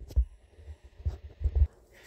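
Handling noise from a camera being moved and set in place: several dull low thumps and knocks on the microphone, the strongest a little over a second in.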